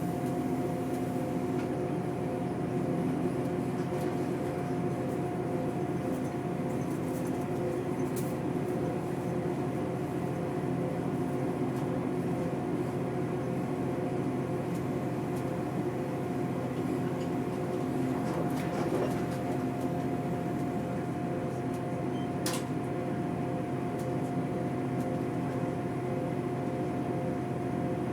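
Steady vehicle drone: an even rumble under several constant humming tones, unchanging throughout, with a couple of faint clicks.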